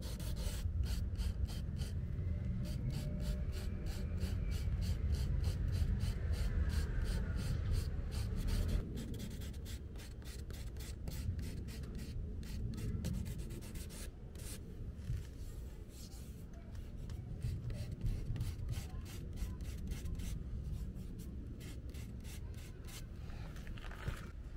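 A sanding sponge rubbed back and forth on a car's scratched plastic bumper, smoothing out the scratches in the paint. It makes quick rasping strokes, about four a second, that grow sparse after about two-thirds of the way, over a steady low rumble.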